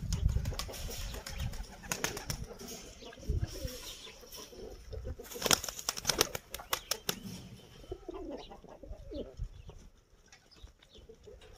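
Pigeons flapping their wings in a run of sharp claps, with a few low coos in the second half.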